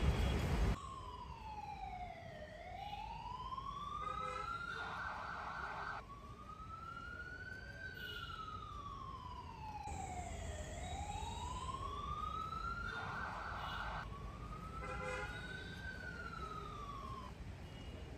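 Ambulance siren wailing, its pitch sweeping slowly down and up, each rise or fall taking two to three seconds, broken twice by a short buzzing blast. A loud rumbling noise cuts off suddenly under a second in.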